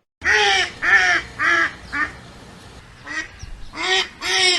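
A duck quacking: a run of short nasal quacks, a pause of about a second, then another run of quacks.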